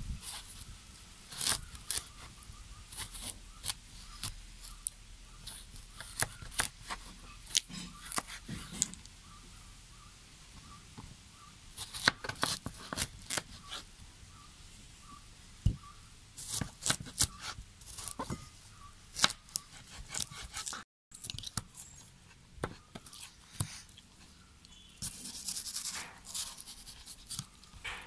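Kitchen knife slicing watermelon into wedges on a plastic cutting board: irregular crisp cuts through the rind and flesh, with sharp knocks of the blade against the board.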